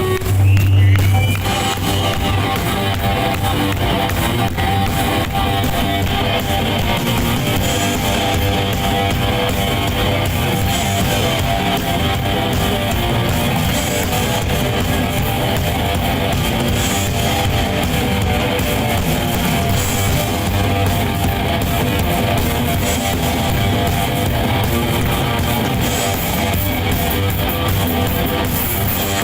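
Live rock music led by strummed electric guitar over bass and drums, loud and continuous.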